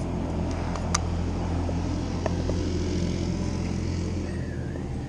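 Steady low engine rumble from a motor vehicle, with a couple of light clicks about one and two seconds in.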